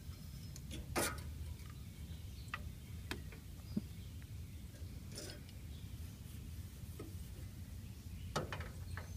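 A few scattered light clicks and taps from hands handling copper refrigerant tubing and wiring, the sharpest about a second in, over a steady low hum.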